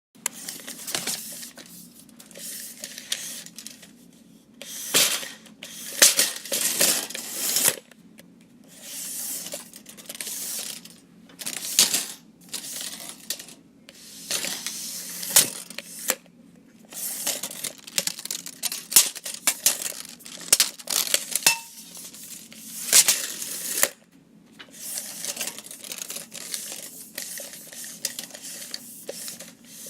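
A tape measure being pulled out and let retract over and over: rasping slides of the blade, broken by sharp metallic clacks as the hook snaps back against the case.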